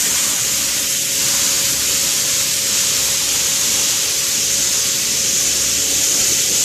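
Pressure washer jet spraying onto a glass-tile mosaic panel, washing the glue off the tesserae: a loud, steady hiss with a faint steady tone underneath.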